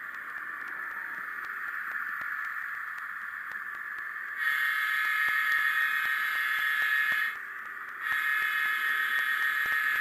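Model steam locomotive's DCC sound decoder blowing its whistle in two long blasts, the first about four seconds in and the second starting about a second after it stops, over a steady hiss of running sound.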